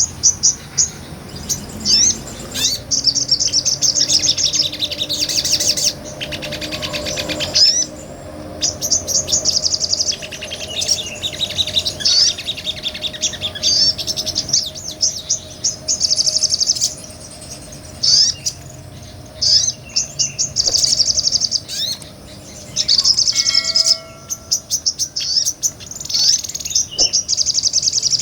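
Sogon, a small nectar-eating bird, singing a long full song: fast high-pitched trills and chattering phrases, one after another with short pauses between them.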